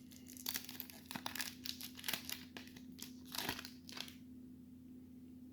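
Baseball card pack wrapper, a 1992 Topps Stadium Club pack, being torn open and crinkled by hand, in a run of quick rustles that stops about four seconds in.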